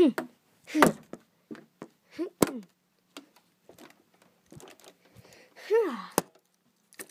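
A child's short wordless vocal noises, each falling in pitch, mixed with scattered knocks and taps from toys and the phone being handled, the sharpest tap about six seconds in.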